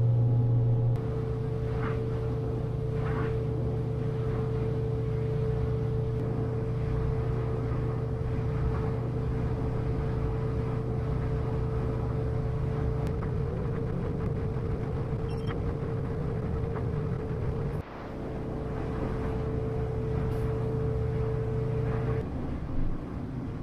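Small pilothouse boat's engine running steadily under way, a low drone with a steady hum and water rush. It dips for a moment about three-quarters of the way through, and near the end the humming tone stops, leaving a softer rush.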